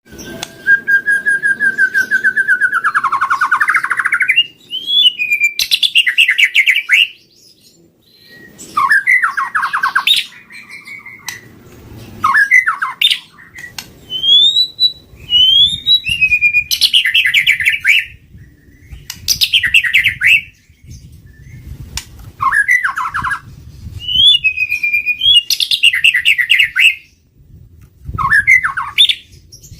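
White-rumped shama singing a run of loud phrases. Clear whistles, some sliding upward, alternate with fast rattling trills, with short pauses between phrases. The song opens with a long steady whistle that dips lower at its end.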